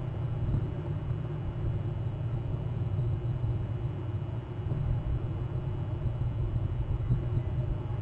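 Steady low outdoor rumble with a faint hiss, picked up by an outdoor webcam microphone.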